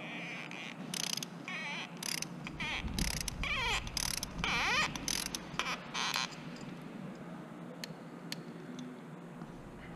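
A torque wrench's ratchet head clicking in a series of quick bursts as bolts are run down, for about six seconds, then only a few faint clicks.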